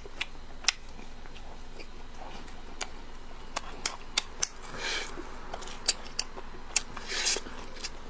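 Close-miked eating of fish fat: scattered sharp wet mouth clicks from chewing and lip-smacking. Two short hissing sucks come about five and seven seconds in.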